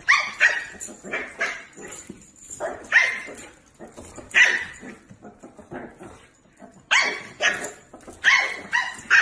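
Small puppy yapping: a run of short, high-pitched barks in quick clusters, with a lull in the middle.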